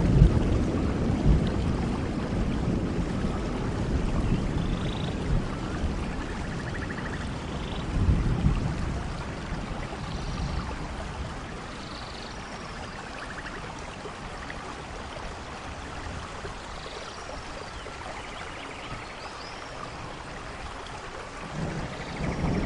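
Steady rain with rolling thunder: a rumble dies away over the first few seconds, another comes at about eight seconds, and the rain runs on quieter until a new rumble builds near the end.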